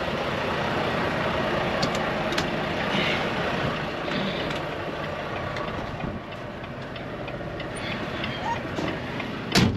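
Semi truck's diesel engine running as the tractor-trailer is slowly backed into a parking space, with one short, loud sound near the end.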